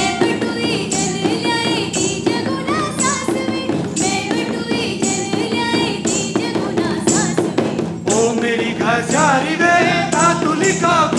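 Live Kumaoni folk dance music: drums keep a steady rhythm with a strong beat about once a second under a melody. Voices singing come in over the last few seconds.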